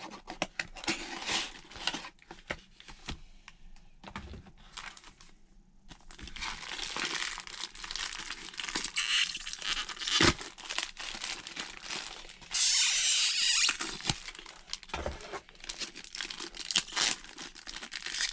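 Cardboard toy packaging being opened and handled, with a plastic bag crinkling and clicking. About two-thirds of the way in comes one loud tearing stretch of a second and a half.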